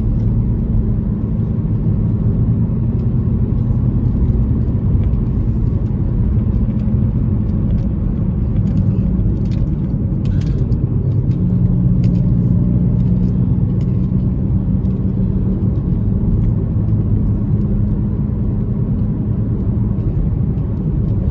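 A car driving along a winding road: steady engine hum and tyre and road rumble, with the engine note shifting slightly about halfway through.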